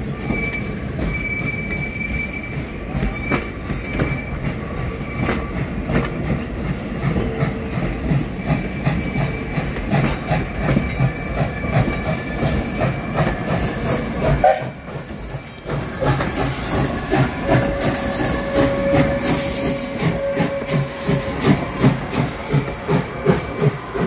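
A steam train passing at walking pace: coach wheels clatter over the rail joints in a steady rhythm. Then the steam locomotive goes by with even exhaust beats about twice a second and a hiss of steam venting from its cylinders.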